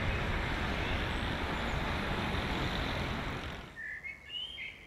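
Steady rush of city road traffic that fades out after about three and a half seconds, followed by a few faint bird chirps.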